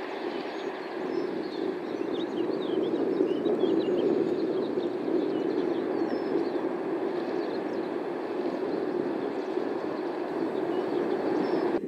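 Jet engines of a four-engined Boeing 747 freighter during its landing roll just after touchdown, a steady rushing roar that swells a couple of seconds in.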